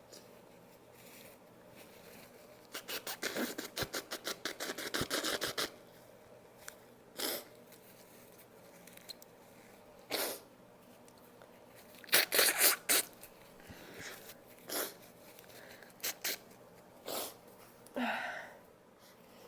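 A person sniffing and drawing short, sharp breaths, the build-up to a sneeze. A fast run of ticking comes about three seconds in. After it, single sniffs and catches of breath follow every second or two, with quiet gaps between.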